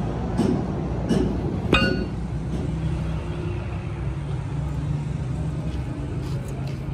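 Four metal clanks in the first two seconds, the last one ringing, over a steady low machine drone.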